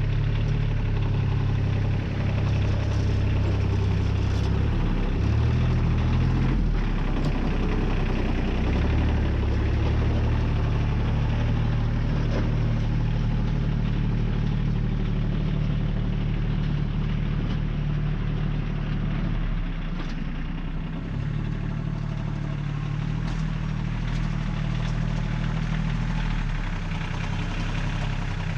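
Compact tractor engine running steadily as the tractor drags a rear blade through asphalt millings. Its note shifts a few times, about five to seven seconds in and again around twenty seconds in.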